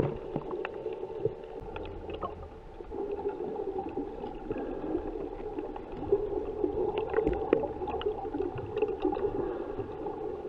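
Underwater sound picked up by a submerged camera: a steady muffled water rush with scattered sharp clicks.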